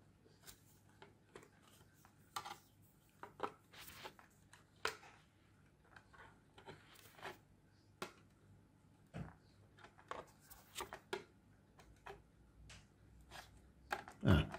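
Small screwdriver tip poking and scraping at the label and plastic back case of an Ei204EN carbon monoxide alarm: irregular light clicks and scratches while feeling for screws hidden under the label.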